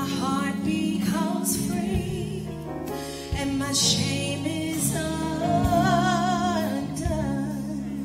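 Gospel worship music: a singer holding long notes with vibrato over sustained chords.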